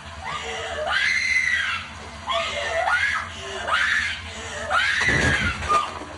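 A woman screaming in terror: about five high shrieks in a row, each rising and then falling in pitch, with a short low thump a little after five seconds in.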